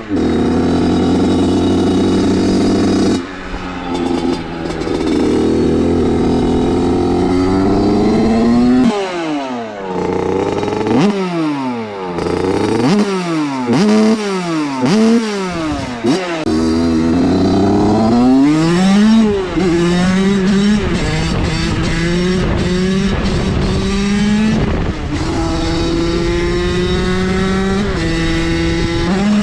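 Small motorbike engine being ridden hard: held at high revs, dropping off a few seconds in, then blipped up and down in a quick run of rising and falling revs before pulling up again and holding a steady high pitch.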